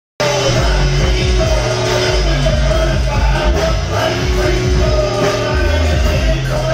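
Live rock band playing, amplified through PA speakers: drums, electric guitar and strong, steady bass notes.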